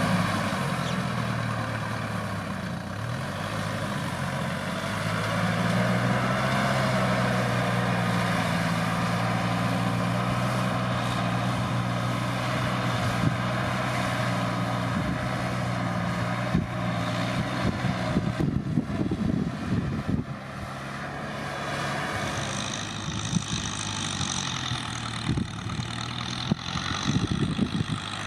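Kubota M6040SU tractor's diesel engine running steadily, its pitch sagging briefly twice. Irregular knocks and rattles join in over the last third.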